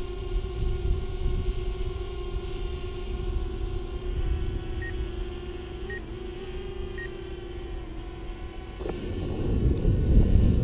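DJI Spark drone hovering, its propellers giving a steady, even-pitched hum, with three short faint beeps about five, six and seven seconds in. Near the end a low rushing noise rises and grows louder.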